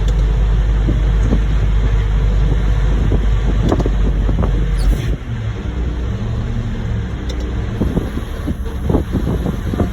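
Heavy diesel engine running with a steady low rumble, dropping to a lower, quieter idle about five seconds in, with a few faint knocks near the end.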